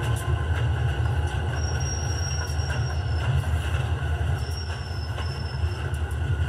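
HO scale model freight train of covered hoppers rolling along the track, a steady low rumble of metal wheels on rail with a few faint clicks. A thin, high wheel squeal comes in twice, for a second or so each time.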